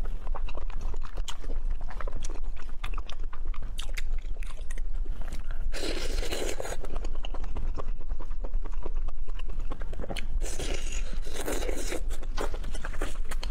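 Close-miked eating: biting and chewing grilled squid in spicy sauce, with many small wet clicks of the mouth and louder bites about six seconds in and again near the end.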